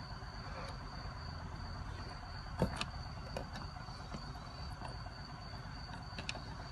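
A few sharp clicks and knocks, the loudest about two and a half seconds in, over a steady high-pitched whine and a low rumble.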